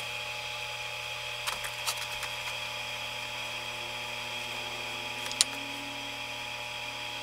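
Steady workshop background hum with a faint high whine, broken by a few soft clicks and taps from small parts being handled during gluing.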